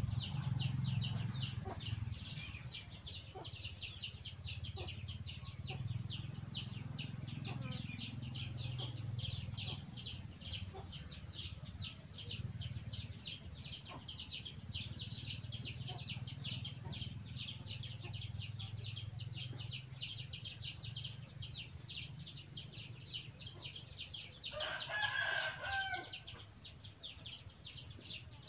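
Outdoor insect chorus: a steady high buzz with rapid, regular pulsing, over a low rumble. A short bird call sounds once, about 25 seconds in.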